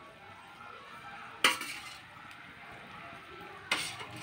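A metal utensil knocks twice against the rim of an iron kadhai, sharp clinks about two seconds apart, over the low simmering of a watery fish and bamboo-shoot curry.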